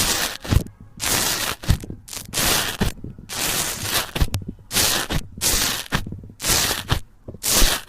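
Slime being squeezed and pressed by hand, making a run of crackly, squishing bursts a little more than one a second, each often starting with a soft thump.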